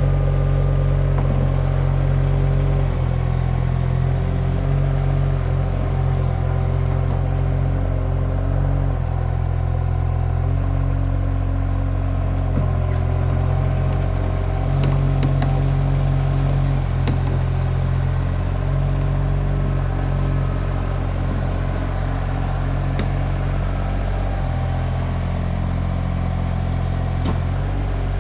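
Mini skid steer's engine running steadily, just after being started, with a deep, even drone and a few light ticks about halfway through.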